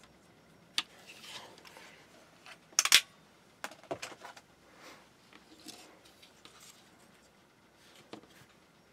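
Scattered handling noises as small electronic parts and a circuit board are moved and set down on a workbench: light clicks and a soft rustle, with one sharp clack about three seconds in, the loudest.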